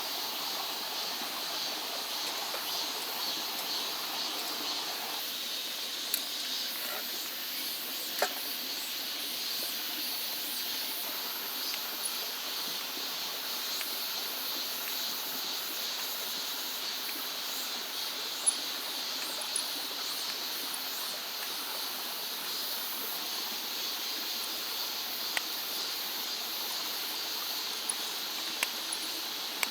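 Steady rush of a mountain stream with a high, even insect hum of summer over it, broken by a few sharp clicks, the loudest about two-thirds of the way through.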